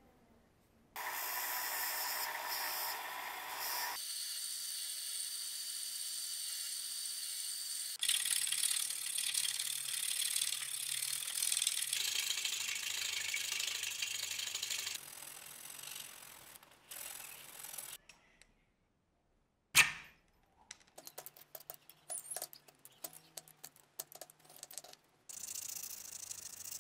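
Cut-together bursts of workshop tool sounds that change abruptly every few seconds: a bench belt sander running and grinding steel, rapid rasping strokes of a hand file on a wooden axe handle, and hand sanding with sandpaper. A single sharp knock about two-thirds of the way through is the loudest sound.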